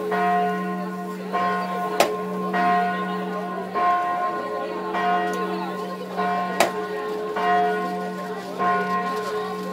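Church bell tolling, struck about once every second with its low hum carrying on between strikes. Two sharp clicks cut in, about two seconds in and again past the middle.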